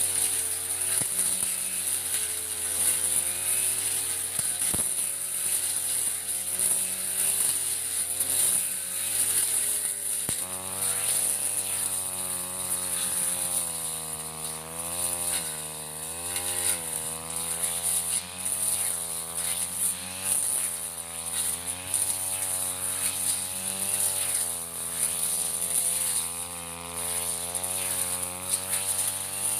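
Backpack brush cutter engine running under load while cutting thick grass, its pitch rising and falling every second or two as the cutting head swings through the grass and growing louder about ten seconds in. A steady high hiss runs over it.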